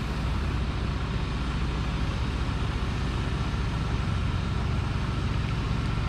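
Diesel engine of a ready-mix concrete mixer truck running steadily at a constant speed, a low, even drone.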